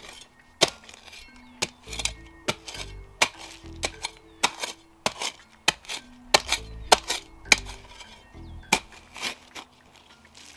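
Cold Steel Spetsnaz shovel digging into rocky soil: a quick, irregular run of sharp chinks and cracks as the blade strikes stones and earth, over background music.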